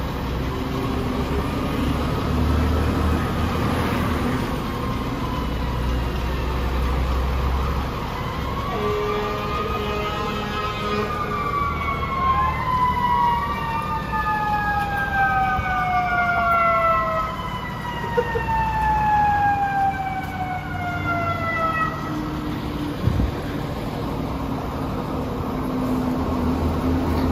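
Fire truck sirens sound in short rising arcs, then several of them overlap and glide slowly down in pitch over several seconds. A fire truck's diesel engine idles underneath, plainer near the start and end. There is one sharp click near the end.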